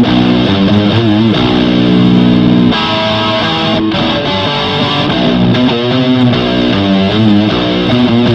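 Electric guitar played through a fuzz pedal with reverb: distorted held notes and chords with wavering bends and vibrato. The tone changes about a third of the way in.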